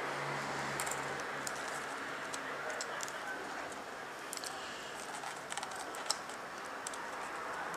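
Soldering a tinned wire onto the lug of a guitar three-way switch with a soldering iron: a low, steady hiss with faint, scattered small clicks and ticks.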